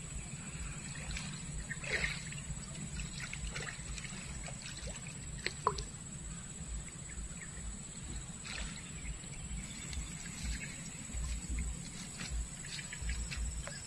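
Water trickling and sloshing, with scattered light clicks and a short falling whistle a little past the middle.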